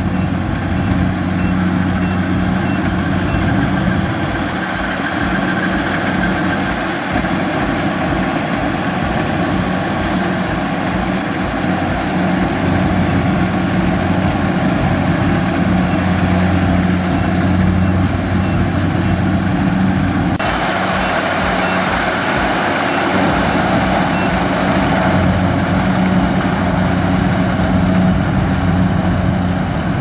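Kubota DC-70 combine harvester's diesel engine running steadily under load while it cuts and threshes rice, a constant engine hum with the clatter of the cutting and threshing machinery over it.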